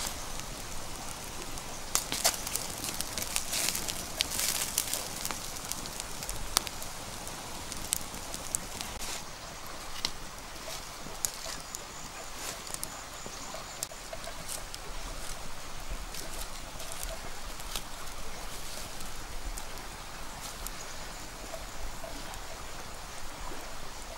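Open wood fire crackling, with sharp pops scattered throughout and thickest in the first few seconds.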